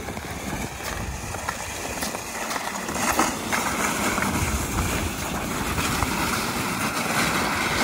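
Plastic ice-fishing sled dragged across bare lake ice: a steady scraping hiss, a little louder after about three seconds, with wind rumbling on the microphone.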